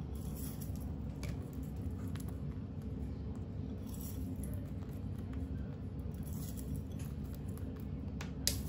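Quiet kitchen with a steady low hum, and a few faint light clicks and taps as seeds are sprinkled by hand onto the dough; a sharper tap comes near the end.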